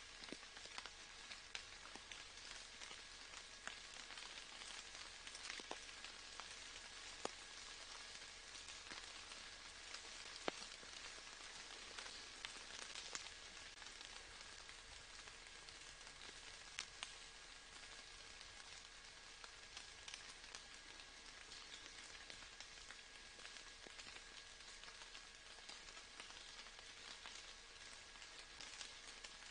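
Faint steady rain, an even hiss broken by many separate drops ticking sharply here and there.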